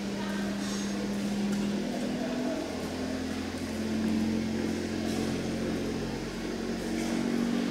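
A steady low mechanical hum, its pitch shifting a little a few times, over a faint even background noise.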